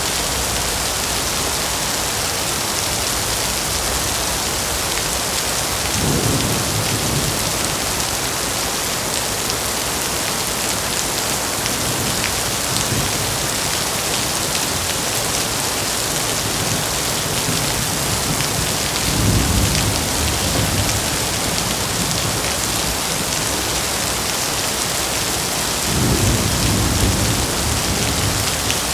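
Heavy steady rain pouring with a dense hiss, with low thunder rumbling up three times: about six seconds in, near the middle and toward the end.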